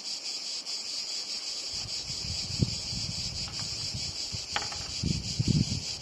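Steady high-pitched chorus of insects. From about two seconds in, low rustling and bumps come from a zippered pouch and microphone cable being handled, with one short squeak about four and a half seconds in.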